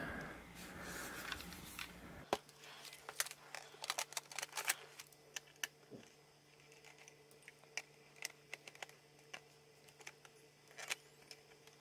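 Faint, scattered light clicks and taps of hands handling a laptop and its DVD drive while the drive is refitted, plastic and metal parts knocking together, over a faint steady low hum.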